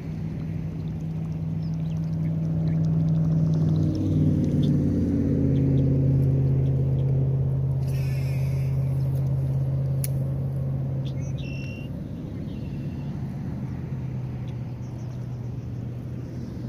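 A motor engine humming steadily, swelling to its loudest a few seconds in and then easing off, its pitch stepping down about four to five seconds in. A few short bird chirps sound over it near the middle.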